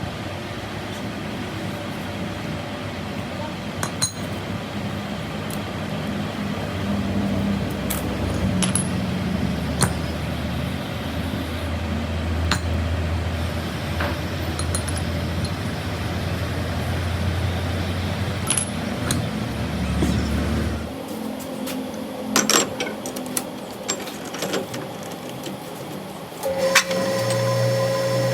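Workshop sounds: a low steady motor rumble with scattered sharp metal clinks of tools and parts, which stops suddenly about two-thirds of the way in. Separate knocks and clinks follow, then near the end a machine starts running with a steady hum and whine.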